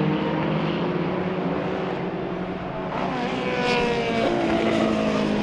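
Engines of several 1960s historic formula racing cars running together, with another car coming past close about three seconds in, its engine pitch sliding as it goes by.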